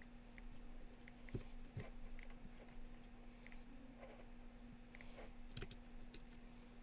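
Faint computer mouse clicks, scattered at irregular intervals, over a steady low hum.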